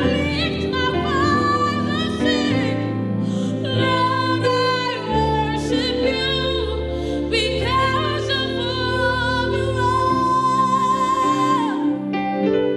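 Slow worship song: a singer holds long, wavering notes over sustained chords and a bass line that changes about every few seconds.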